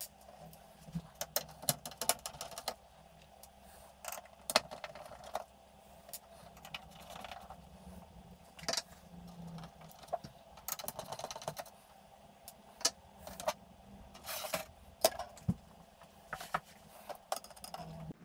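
Irregular clicks, taps and light rattles of a computer motherboard and its screws being handled as the Amstrad CPC464's circuit board is unscrewed and lifted out of its plastic case.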